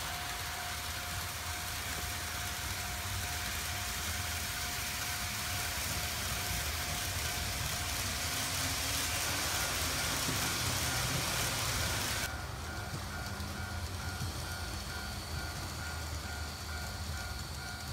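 N gauge model trains running on a layout: a steady hiss and rattle of small wheels on rails with a faint steady motor whine, growing a little louder and then dropping suddenly about twelve seconds in.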